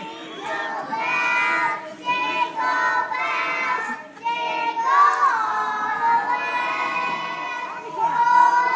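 A class of preschool children singing together in short phrases, with brief breaks between the lines.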